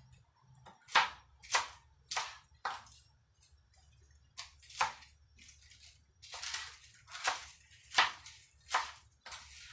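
Kitchen knife cutting through crisp mustard-green leaves and stalks onto a plastic cutting board. About a dozen sharp cuts come in short runs, with brief pauses between them.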